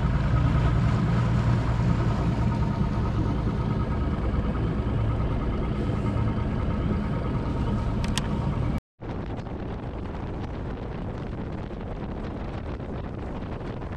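Boat motor running steadily under way, with a constant hum. About nine seconds in, the sound cuts abruptly to a quieter, even rushing noise.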